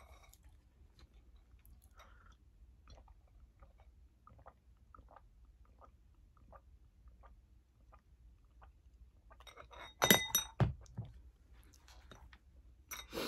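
Faint chewing of noodles with small wet mouth clicks, then about ten seconds in a drinking glass clinks sharply and rings briefly.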